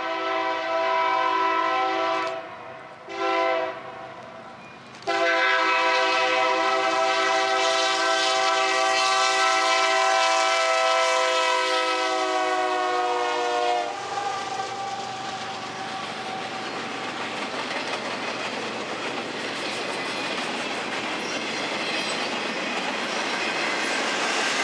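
Diesel locomotive air horn with several tones sounding: a long blast, a brief short one, then a long blast of about nine seconds whose pitch drops as the engine passes. It then gives way to the steady rumble and clickety-clack of the empty flatcars of a rail train rolling by.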